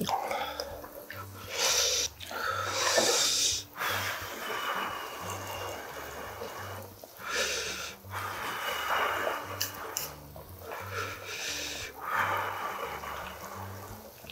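Hot samgyetang broth ladled out of a simmering pot into a bowl: splashy pours in bursts of about a second, repeated several times.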